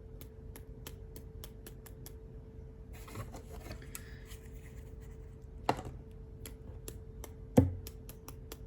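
Acrylic paint being flicked off a brush in flecks, making a string of quick light ticks with a short scratchy brush sound partway through. Two louder knocks come near the end.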